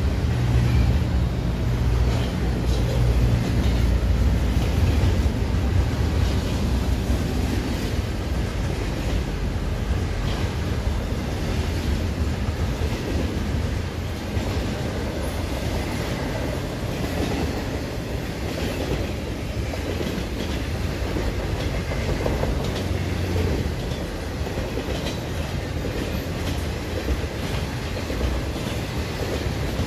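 Intermodal freight train rolling past, its double-stack container well cars and trailer-carrying flatcars making a steady low rumble, with repeated clicks of wheels passing over the rail joints.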